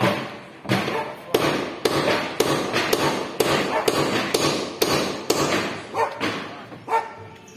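Hammer blows on the planking of a wooden boat hull, about two strikes a second, each with a short metallic ring, growing fainter near the end.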